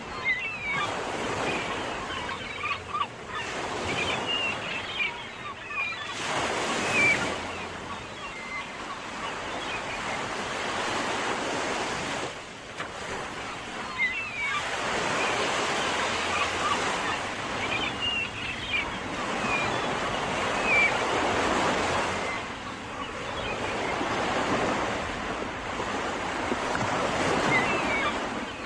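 Ocean surf: waves breaking and washing in, swelling and fading in long surges every few seconds.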